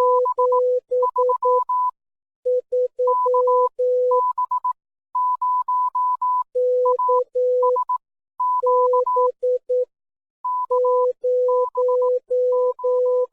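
Electronic Morse code beeps: short and long tones keyed in groups with pauses, alternating between a higher pitch and one an octave lower.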